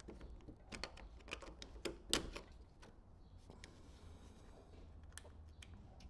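Scattered light clicks and taps from handling a plastic car door handle and a screwdriver. There is a cluster of them in the first two and a half seconds, the loudest a little after two seconds, and one more near five seconds.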